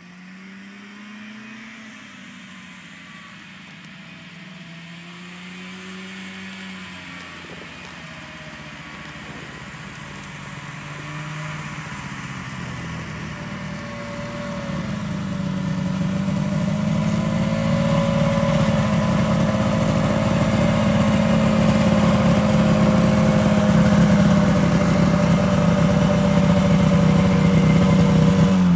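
1975 John Deere JDX 340 snowmobile's two-stroke engine, faint at first and growing steadily louder as the sled comes closer. Its pitch wavers at first, then holds steady over the last dozen seconds.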